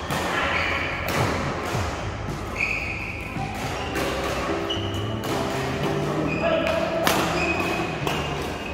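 Badminton doubles rally: racket strikes on the shuttlecock every second or two, with short, high squeaks of shoes on the court floor between them.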